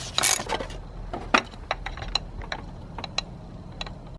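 Ratchet wrench cranking the oil filter housing cap loose, the last couple of strokes in the first moment, then a string of about nine separate light clicks as the cap is turned further.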